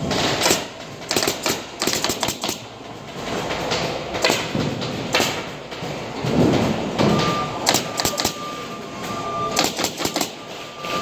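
Irregular clattering taps and knocks of hand work with tools and wood in a woodworking shop, with a denser, heavier patch past the middle. A steady high tone joins about seven seconds in.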